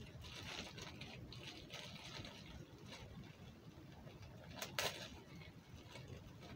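Faint rustling and fiddling of a small object in the hands, with one sharp click about three-quarters of the way through.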